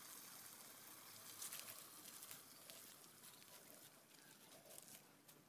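Near silence: faint outdoor background hiss with a few faint, short clicks.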